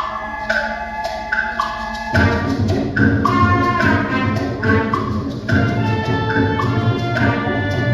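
Symphonic band playing: high wind and mallet notes move in short stepping figures, then about two seconds in the low brass and the full band come in under them, with repeated short attacks over held chords.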